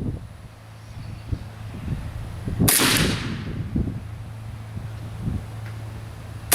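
Two single rifle shots from an AK-74 in 5.45x39mm, fired slow and deliberate about four seconds apart: one sharp report a little under three seconds in with a short echo tail, and the next right at the end.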